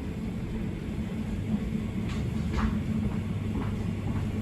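Elizabeth line train's steady low rumble, with a few short high-pitched squeaks about two seconds in.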